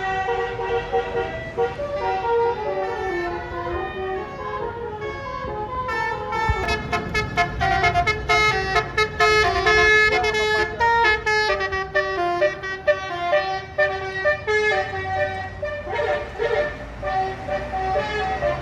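Bus telolet horn, a Basuri multi-tone horn, playing a melody of stepping chord-like notes, with a fast run of quick repeated notes in the middle. A bus engine rumbles underneath.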